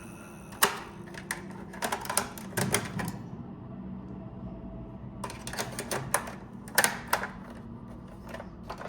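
Irregular sharp clicks and clacks of hard plastic toys and packaging being handled, in two clusters with a pause of about two seconds between them, over a faint low hum.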